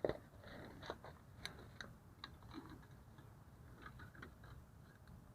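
Scattered light clicks and ticks of hand tools and metal parts on a drum brake's shoes and spring hardware as the shoes are being released, with a sharper click at the start.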